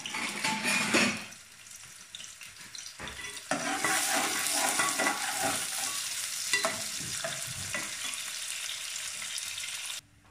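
Sliced onions sizzling in hot oil in an aluminium pot as they are browned, stirred with a metal spoon that clicks and scrapes against the pot. The sizzle jumps up suddenly about three and a half seconds in and cuts off near the end.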